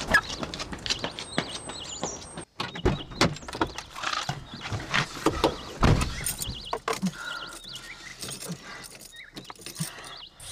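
Quick running footsteps on a pavement, then clicks, knocks and rattles of a car door and keys as a man settles into the driver's seat of a car.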